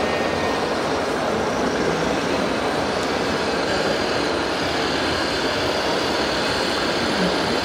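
Radio-controlled model trucks running, heard as a steady, even rumble mixed with the din of a busy hall.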